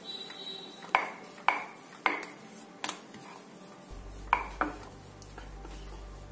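Metal kitchen utensils clinking: six sharp taps, each with a brief ring, at irregular intervals. A low steady hum comes in about four seconds in.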